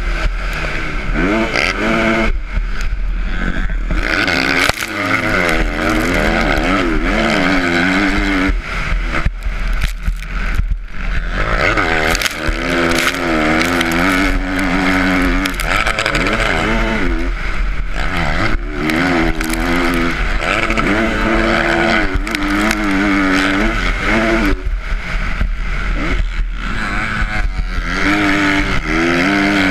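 Motocross dirt bike engine heard from on board, its pitch rising and falling again and again as the rider accelerates, shifts and rolls off for corners, with a steady rush of wind over the microphone.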